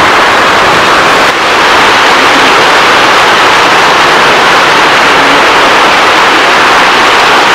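Loud, steady rushing noise with a brief dip about a second in.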